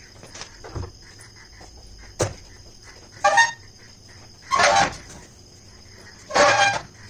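Domestic fowl calling: short loud honking calls, one after another about every second and a half, starting about three seconds in. A couple of sharp knocks come before them.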